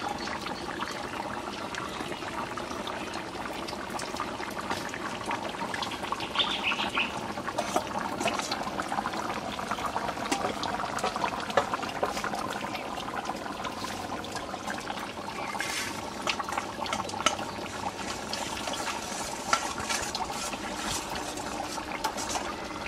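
Chicken curry boiling hard in a large iron wok, a steady dense bubbling, with a few sharp clinks of a steel ladle as curry is scooped and poured into a metal bowl.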